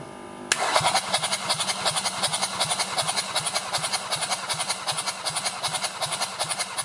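Kia Sportage's 2.0-litre D4HA turbodiesel being spun over on its starter motor for a compression test on cylinder one. The steady, rhythmic cranking starts about half a second in and stops near the end.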